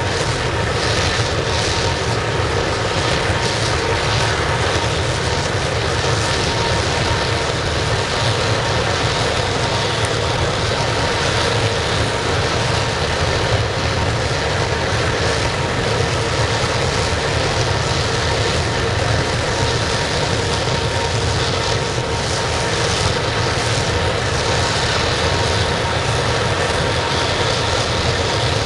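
Waste-oil burner firing a large scrap-melting furnace: a steady, unbroken roar of flame and blown air, with a faint steady whine running through it.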